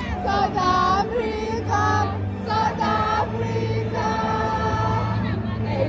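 Music with voices singing together in a choir-like way over a steady low note.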